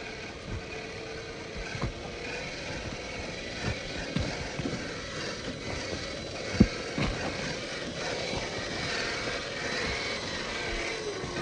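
Traxxas TRX-4 Sport RC crawler's electric motor and gear drive whining as it crawls over rock, the pitch gliding up and down with the throttle. A handful of sharp knocks of tyres and chassis against stone come through, the loudest a little past halfway.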